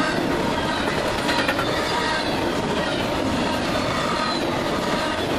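Double-stack container well cars of a freight train rolling past close by: a steady rumble of steel wheels on rail, with thin high wheel squeals running through it and a brief clatter about a second and a half in.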